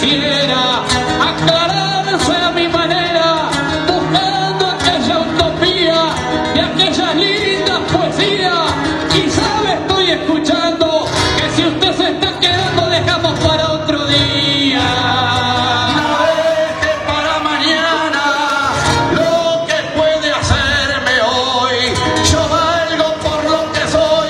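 Payada music: acoustic guitar playing a strummed and plucked accompaniment, with a male voice singing over it.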